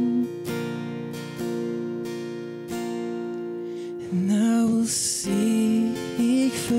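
A man singing a worship song to his own strummed acoustic guitar. For the first few seconds only the strummed chords ring; the voice comes back in about four seconds in.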